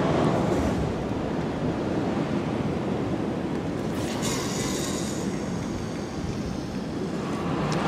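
Wind buffeting the microphone: a steady rushing rumble that rises and falls in level, with a brief brighter hiss about four seconds in.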